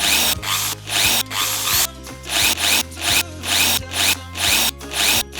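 Toy power drill whirring in short bursts, about eight in a row, each with a rising whine as the bolt is driven.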